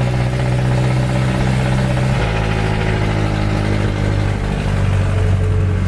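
Jeepney engine running steadily. Its pitch steps down to a lower, steady note about two seconds in.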